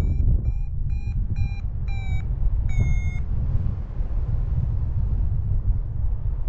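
Paragliding variometer beeping its climb tone in a thermal: short high beeps, about two a second, stopping about three seconds in. Wind rushes steadily on the microphone underneath.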